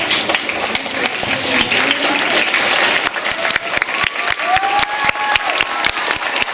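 An audience of schoolchildren and adults applauding, with a few voices mixed in. The clapping grows denser from about halfway through.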